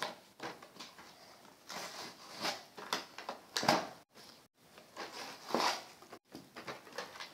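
Toy car packaging being rustled and torn open by hand, in irregular crinkling bursts with a few louder crackles.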